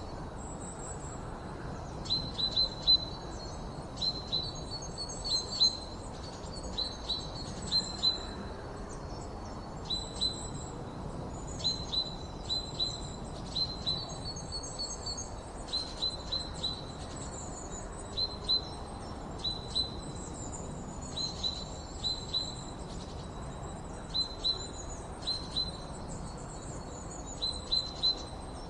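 Wild birds chirping: short sharp chirps in quick runs of two to four, with thinner, higher calls between them, over a steady background hiss.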